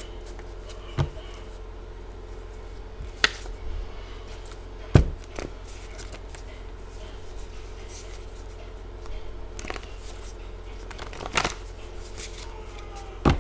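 Reading cards being handled on a tabletop: about six separate sharp taps and clicks as cards are picked up and laid down, over a steady low hum.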